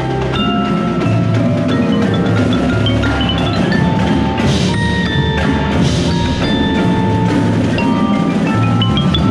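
Percussion ensemble music with a close-up xylophone and glockenspiel playing quick struck notes over lower sustained tones. Two noisy metallic hits come about four and a half and six seconds in.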